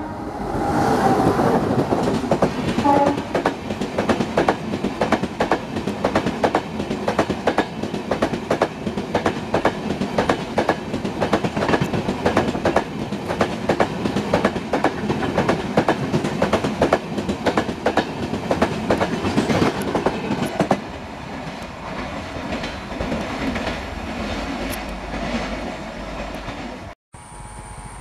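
An express train hauled by an Indian Railways WAP-7 electric locomotive passes at speed, its LHB coaches' wheels clattering over the rail joints in a fast, continuous run of clicks. The sound drops noticeably about three-quarters of the way through as the last coaches go by.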